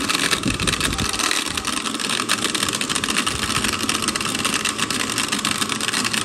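Countertop blender motor running steadily at speed, churning a full glass jug of nance pulp with water and sugar.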